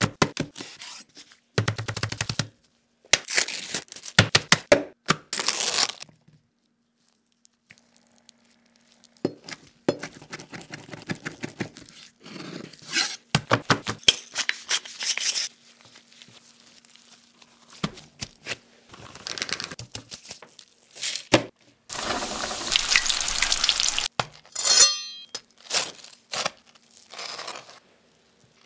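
A run of separate close-up food-handling sounds: raw pork belly slices being slapped, peeled and laid on a wooden cutting board. About two-thirds in, a steady sizzle of deep-frying lasts a couple of seconds, followed by crisp crunching from the fried crust near the end.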